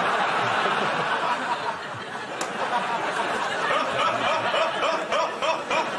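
Studio audience laughing loudly in one long sustained wave of many voices.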